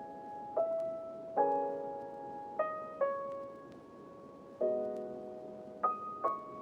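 Slow, gentle piano music: single notes and soft chords struck about every second or so, each left to ring and fade.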